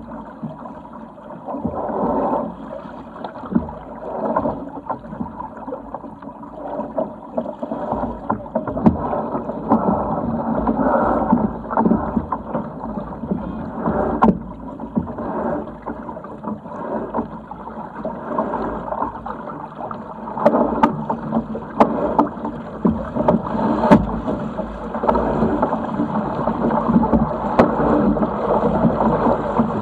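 Water rushing and splashing along the hull of a Sigma 8 metre racing yacht under sail, swelling and easing with each wave, with a few sharp knocks.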